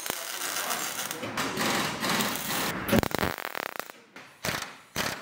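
MIG welder arc crackling and sputtering, with a fast, dense crackle for about three seconds, then a pause and two short bursts of welding near the end.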